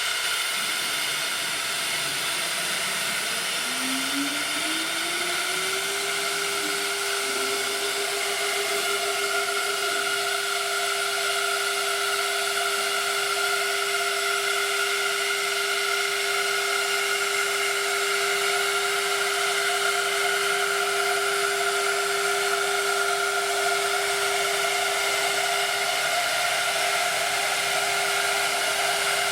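2001 Quintax 5-axis CNC router running its sample program: a steady rushing, airy machine noise that starts abruptly, with a whine that rises in pitch from about three to six seconds in and then holds steady.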